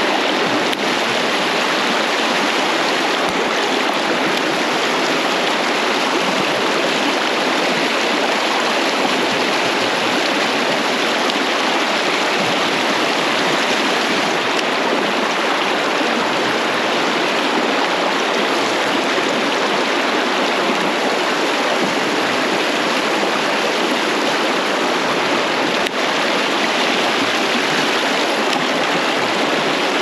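Mountain stream rushing over rocks, a steady, even sound of flowing water.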